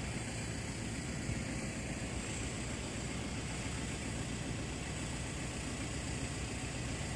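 Steady low rumble with hiss: outdoor background noise that holds level, with no crossing alarm or passing train standing out.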